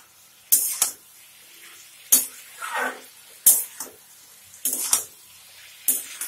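Spatula stirring pointed gourd and potato frying in a pan, scraping and knocking against the pan about once a second, over a faint steady sizzle of the oil.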